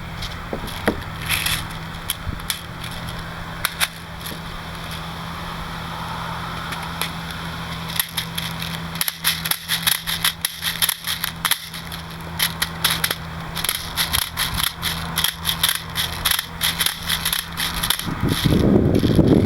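KWA M11 gas blowback airsoft submachine gun firing: scattered single shots at first, then rapid strings of sharp cracks from about eight seconds in. A steady low hum runs underneath and stops near the end.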